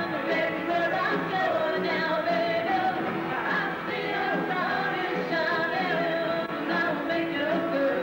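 Live rock band playing, with a woman singing lead over drums and guitars.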